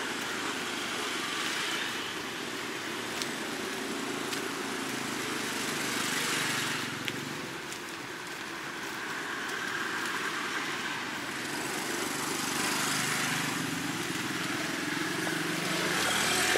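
Road traffic on a rain-wet street. Engines hum steadily, and tyre hiss swells and fades several times as vehicles go by.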